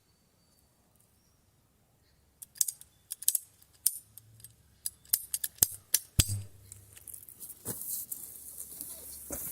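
Quiet at first, then from about two and a half seconds in a flurry of sharp clicks and snaps, with a steady high hiss starting near the end.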